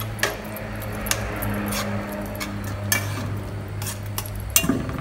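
Irregular sharp metallic clinks against a metal cooking pot, about one a second, as flaked saltfish is stirred by hand into reduced coconut milk, over a steady low hum.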